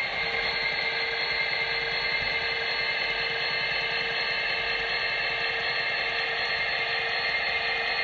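MTH HO-scale SD70ACE model locomotive rolling slowly, its onboard sound system playing a steady diesel engine sound through a small speaker, with the model's motor whirring underneath.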